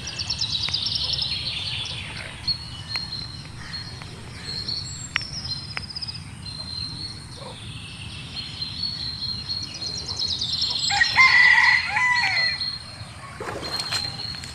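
A rooster crows once, about eleven seconds in; this is the loudest sound. Throughout, small birds chirp rapidly in high trills, and a thin steady high tone runs under them.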